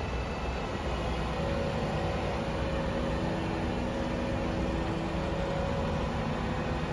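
Mobile crane's diesel engine running steadily while lifting a precast concrete drain section, with faint steady tones coming and going over the low rumble.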